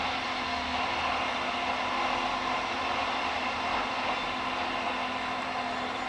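Diesel engine of a rail track maintenance machine running steadily, a continuous even machine noise with a low hum.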